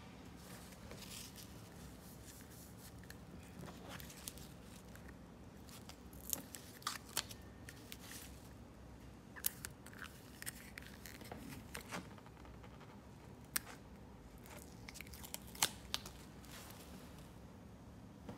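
Hands handling a plastic suction-cup mount and satin fabric: scattered sharp plastic clicks and ticks over light rustling.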